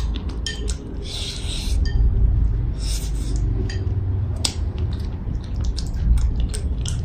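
Eating at the table: chopsticks clicking against a porcelain rice bowl, with close-up chewing and a brief slurp about a second in, over a steady low hum.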